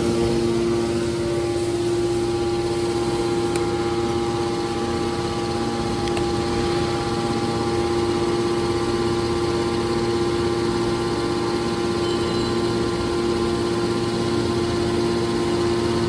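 Hydraulic power unit of a scrap metal baler press, with its electric motor and pump running steadily. It gives a constant hum with a few steady tones that do not change in pitch.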